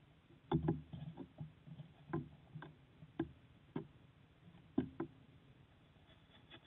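Long-tailed goral bumping and nosing the trail camera: about a dozen dull knocks on the camera housing, coming irregularly over about four and a half seconds.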